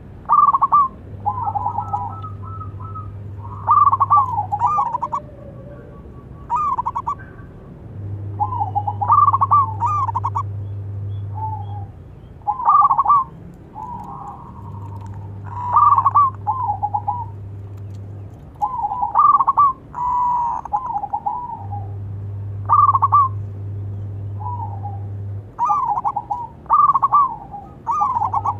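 Zebra doves (perkutut) cooing: short, rapid, warbling coo phrases repeated every two to three seconds, some following close on one another. A low steady hum comes and goes underneath in stretches of a few seconds.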